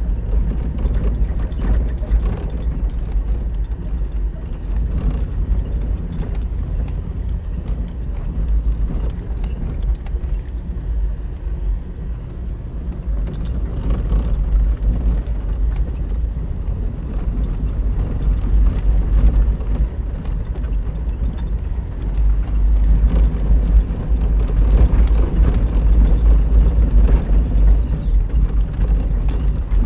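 Steady low rumble of a taxi driving, its engine and tyre noise heard from inside the cabin, swelling a little louder in the last third.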